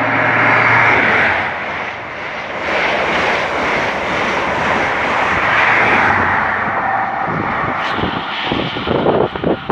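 High Speed Train with Class 43 diesel power cars passing at speed: engine roar and rushing air, loudest about a second in and again around six seconds, loud in between as the coaches go by. In the last second or so, a run of uneven low thumps.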